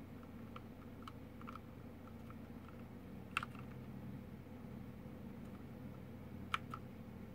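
ASUS ROG Claymore mechanical keyboard: single keys pressed now and then, not continuous typing. A few light clicks, with two sharper ones about three and a half and six and a half seconds in. The presses switch the keyboard's backlight effect.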